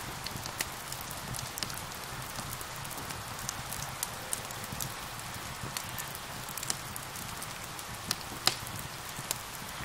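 Steady rain hissing with a wood fire crackling over it: frequent sharp pops and snaps, the loudest about eight and a half seconds in.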